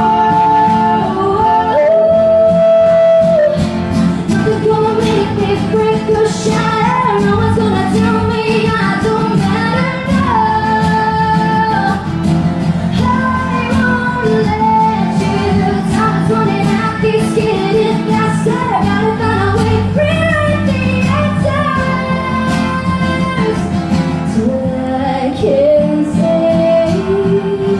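Live pop-rock band performance with a female lead singer holding sung notes over electric guitar and a steady drum beat.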